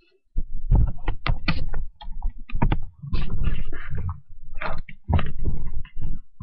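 Loud, irregular rumbling bumps and rustles of handling noise, as a handheld recording device is jostled and rubbed against fabric.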